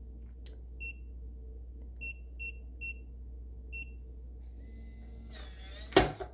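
Electronic keypad smart door lock beeping five times as a code is keyed in, each key press a short high beep. About five seconds in the lock's motor whirrs briefly and ends in a loud clunk as the bolt is driven.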